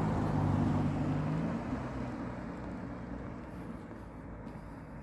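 A motor vehicle's engine hum and road noise, loudest at the start and fading steadily as it moves away; the engine's pitched hum drops out about a second and a half in.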